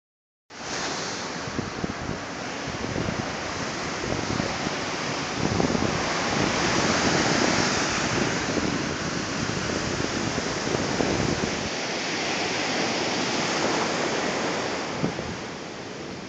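Ocean surf washing onto a sandy beach, with gusts of wind buffeting the microphone.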